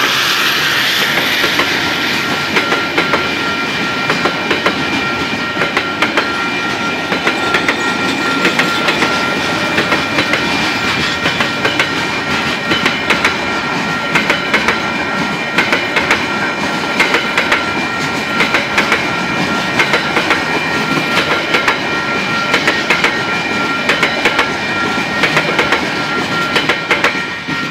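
Container wagons of a freight train rolling past, with rhythmic clacking in quick pairs as each bogie's wheels cross the rail joints. A steady ringing tone from the level crossing alarm runs underneath.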